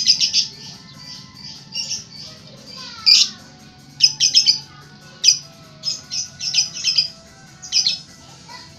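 Lovebird giving sharp, high-pitched squawking chirps in quick clusters of several calls, repeated every second or so.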